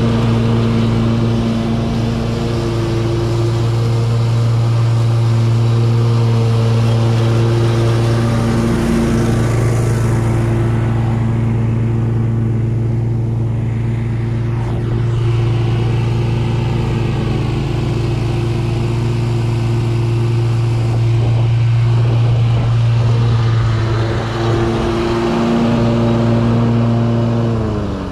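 Gravely zero-turn riding mower's engine running steadily at high throttle with the cutting blades engaged, mowing tall wet grass. Right at the end the engine speed drops in a falling pitch as it is throttled down.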